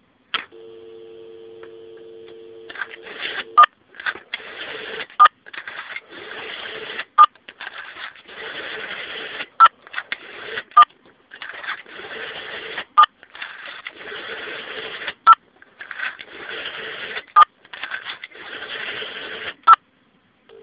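GPO 706 rotary telephone with a Rotatone module: a click, then steady two-tone UK dial tone for about two seconds, which stops as dialling begins. The rotary dial is then wound and whirs back about nine times, each digit ended by a short sharp tone as the Rotatone sends it as a touch-tone digit.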